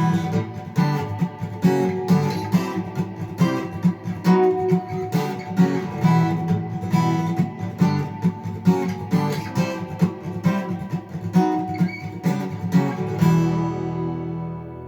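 Acoustic guitar strumming chords in a steady rhythm, ending near the end on a final chord that rings out and slowly fades.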